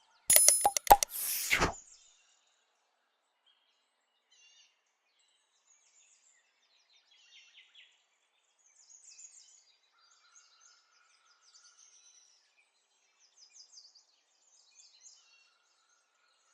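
A quick run of sharp knocks with a brief metallic-sounding ring, over in the first second and a half, like hard kitchenware clattering. Then faint, scattered high bird chirps.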